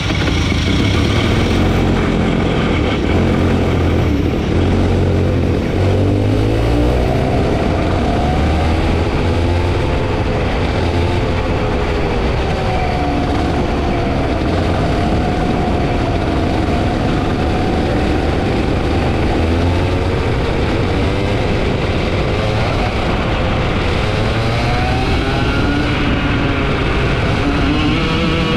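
Racing kart engine running at low revs, then rising and falling in pitch from about seven seconds in as the kart is driven off, revving up and easing off repeatedly.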